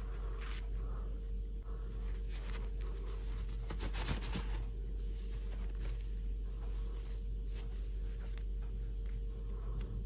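Rustling and scraping as hands handle plastic fashion dolls and their fabric dresses on artificial grass: short, scattered rustles, busiest about four seconds in, over a steady low hum.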